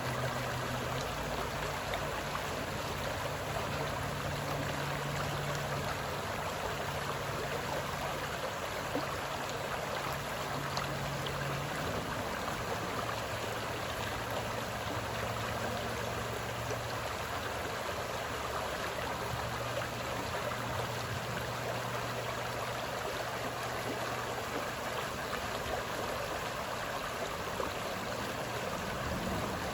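Lake water making a steady, even rushing and trickling sound. A low steady hum runs underneath and drops slightly in pitch about twelve seconds in.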